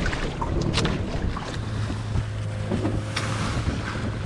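A boat's engine running with a steady low hum, with wind on the microphone and water splashing against the hull. There are a couple of sharp knocks or splashes.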